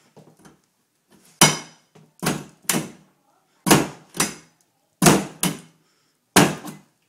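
Crowbar banging and forcing at a locked wooden interior door by its handle: about nine heavy thuds, often in pairs, as the door is broken open.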